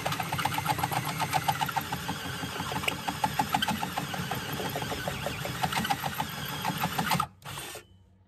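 Cordless drill driving a hole saw through the van's double-layer steel floor, the motor running under load with a fast, even chatter of the teeth cutting. It stops about seven seconds in, runs again for a moment and stops.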